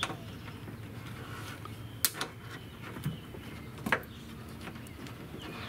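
Plastic push-in retainer clips on a car's felt trunk-lid liner being worked loose with a plastic trim-removal tool: a few sharp clicks, two close together about two seconds in and another near four seconds in.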